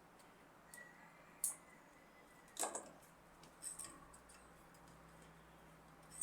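Faint, scattered metallic clicks and clinks of a wrench on a bolt as it is worked loose, about half a dozen light ticks with one slightly louder knock near the middle.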